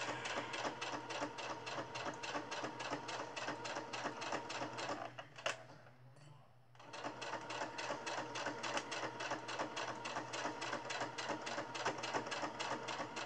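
Domestic electric sewing machine stitching through cotton fabric: a rapid, even clatter of the needle over a steady motor hum. It stops a little over five seconds in, with a click during a pause of about a second and a half, then starts again at the same pace.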